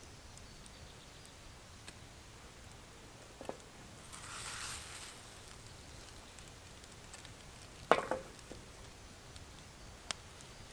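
Diced meat sizzling faintly in a steel frying pan over a campfire. About halfway there is a brief louder hiss as the food is shaken in the pan. Just before the end the pan is set back down on the metal grill grate with a sharp clank, the loudest sound.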